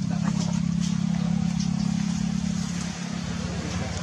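An engine running steadily with a low, fast-pulsing hum that eases off about three seconds in.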